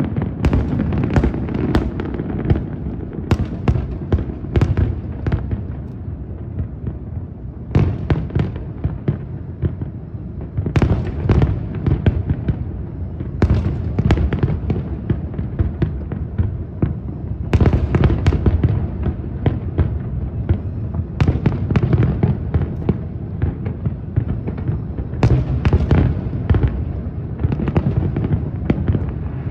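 A big aerial fireworks display: shells burst in rapid volleys of sharp cracks over a continuous deep booming rumble. The thickest clusters of cracks come about a second in, near eight, eleven, eighteen and twenty-five seconds in.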